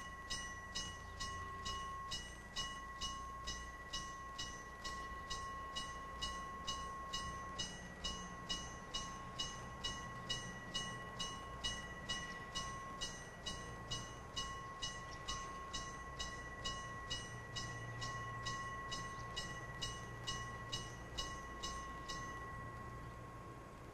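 Railway warning bell ringing steadily about twice a second, stopping near the end, over the low rumble of a KiHa 202 diesel railcar approaching.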